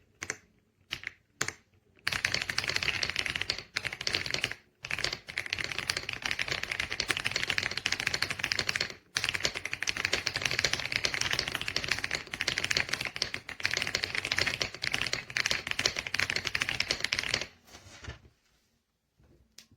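Fast typing on the EPOMAKER x Aula F75 gasket-mount mechanical keyboard. A few separate keystrokes give way to a dense run of key clicks with a few short pauses, which stops near the end.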